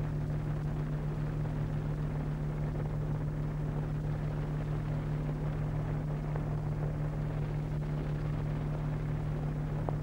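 Steady electrical hum with evenly spaced overtones over a layer of hiss, the background noise of an old film soundtrack. It is unchanging, with a faint click near the end.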